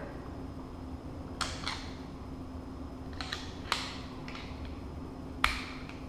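Scattered sharp clicks and taps, about seven of them, from a plastic wall switch plate being handled and positioned over rocker switches; the loudest comes near the end.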